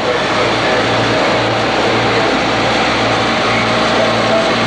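Large farm tractor's diesel engine running steadily as the tractor drives past.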